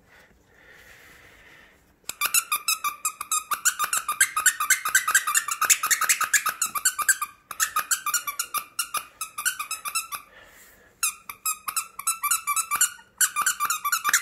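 Banana-shaped squeaky plush toy squeaking in fast runs of many short squeaks a second, starting about two seconds in and coming in four spells with short breaks, as a Maltipoo puppy bites and tugs at it.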